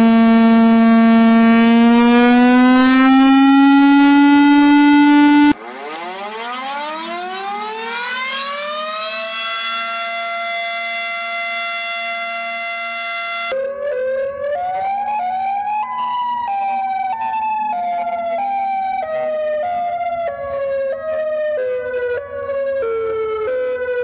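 Three different loud warning sirens, cut abruptly one to the next. The first holds a wail that slowly rises in pitch. About five and a half seconds in, the second winds up from low to a steady high tone. About halfway through, the third starts: a wavering tone that climbs, then steps downward in short jerks about twice a second.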